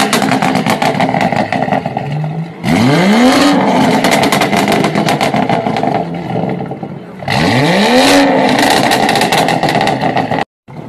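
BMW 2 Series coupé revved hard twice, each blip a quick rise and fall in pitch, followed by a few seconds of rapid popping and crackling from the exhaust as the revs drop. The sound opens on the crackle of an earlier blip and cuts off suddenly near the end.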